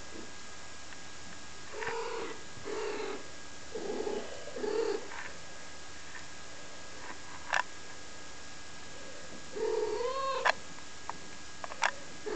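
Ragdoll kittens mewing: four short calls in the first five seconds, then another about ten seconds in. A few sharp clicks fall in the pause and near the end.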